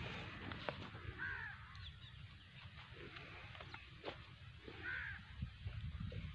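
A bird calling twice, two short calls about three and a half seconds apart, with a few faint clicks.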